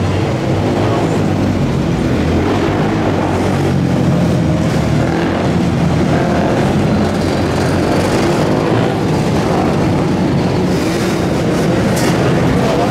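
Loud, steady engine noise from motor vehicles, holding at a constant level with a low hum underneath.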